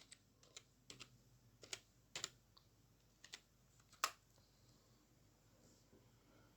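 Faint computer keyboard keystrokes and clicks, about a dozen irregularly spaced taps over the first four seconds, the loudest just after four seconds.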